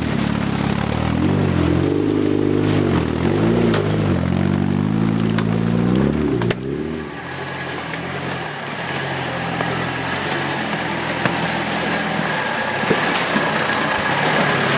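Off-road 4x4 engine revving up and down as it crawls over rocks, cutting off suddenly about six seconds in. A red Jeep's engine then runs more quietly at low speed, with a few knocks from the rocky trail.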